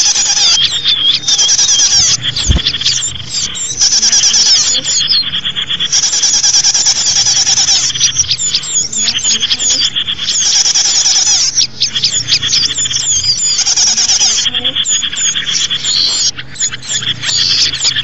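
A dense chorus of small songbirds: many high-pitched chirps and fast trills overlapping without pause, a bird-lure recording for attracting small birds.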